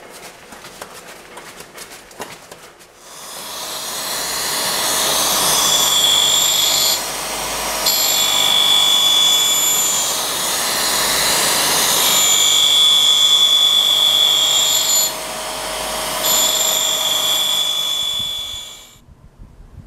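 A lathe runs quietly with light ticking for a few seconds. Then a grinding wheel spun by a drill press grinds a flat onto a 10 mm high-speed-steel tool blank: a loud, steady grinding with a high whine that comes and goes over several passes, which cuts off shortly before the end.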